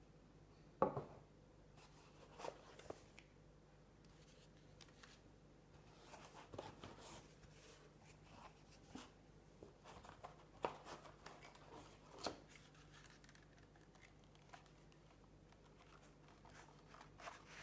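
Faint handling sounds of a model train being unboxed: the box lid coming off, packaging rustling and the model scraping and knocking against its foam tray. Scattered soft knocks and scrapes, the sharpest about a second in.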